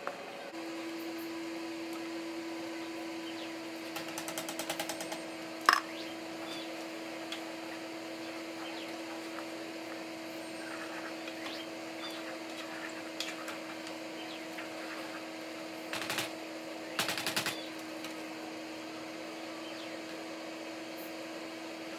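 A plastic spoon scraping and knocking against a metal skillet and pot as browned ground meat is stirred and scooped, in short rapid clattering runs and one sharp knock, over a steady electrical hum that comes on about half a second in.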